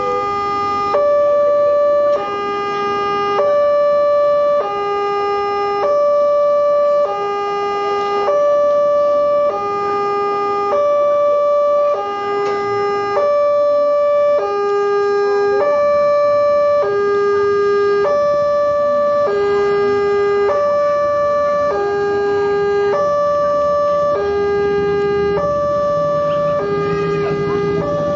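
Wantech railway level-crossing alarm from the crossing's horn loudspeaker: an electronic two-tone signal alternating high and low, each note about a second long, warning that a train is approaching and the barriers are down. A low rumble builds underneath near the end.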